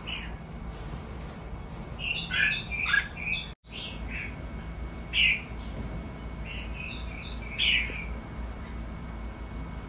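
Red-whiskered bulbuls calling: short chirpy notes, with a burst of several calls about two seconds in and further single calls around five and seven and a half seconds, over a low steady hum.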